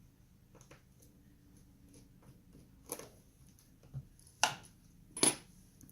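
Small clicks and taps of a small Phillips screwdriver and tiny screws being worked on a laptop's LCD panel. Two louder, sharp clicks come near the end.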